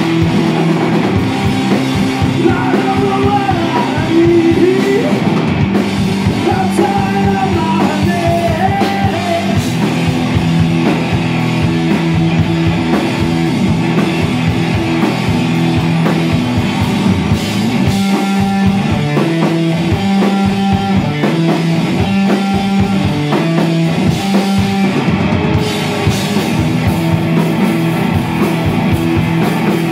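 Rock band playing live: electric guitar and a drum kit, with singing.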